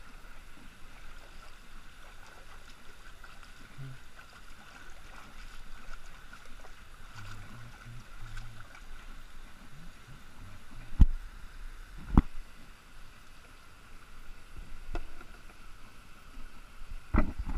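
Kayak sitting against a lock wall: faint, steady water noise, broken by two sharp knocks about a second apart and another near the end as the kayak bumps the wall.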